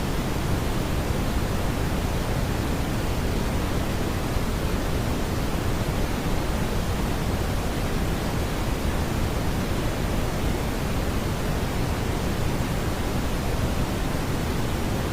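Generated smoothed brown noise: a steady, even hiss with most of its weight in the bass, thinning toward the treble, with no tones or beats.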